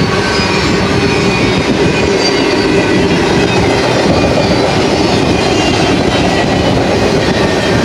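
Double-stack container well cars of a BNSF intermodal freight train rolling past, a loud, steady noise of steel wheels on rail.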